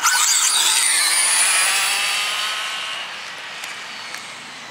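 Two brushless electric RC cars, a Traxxas Rustler and a Traxxas Rally with Castle Mamba Monster systems, launching off the line at full throttle in a drag race: a sudden loud high-pitched motor whine that fades over about three seconds as they speed away.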